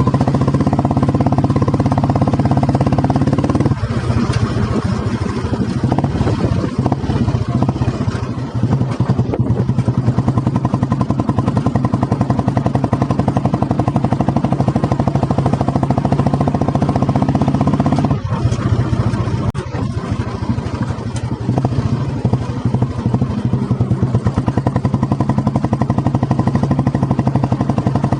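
Vintage 1985 Royal Enfield Bullet 350's single-cylinder four-stroke engine running through a loud exhaust while being ridden, a fast steady beat of exhaust pulses that dips briefly twice.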